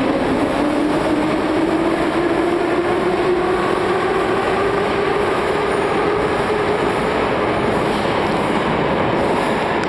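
Metro train running through the station: a loud, steady rumble, with a motor whine that rises in pitch over the first few seconds and then holds steady.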